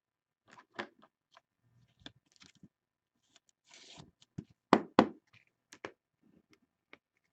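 Trading cards and clear plastic card holders handled by hand: light clicks and a brief plastic rustle as a card slides into a rigid top loader, then two sharp plastic clacks close together about five seconds in as it is set down on the table.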